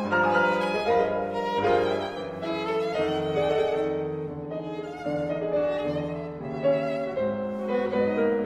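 Background music: a violin playing a melody in held notes with vibrato, over a lower accompaniment.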